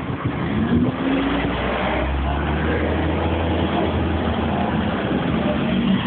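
A motor vehicle's engine running close by in street traffic, rising in pitch about a second in, with a deep rumble for a few seconds.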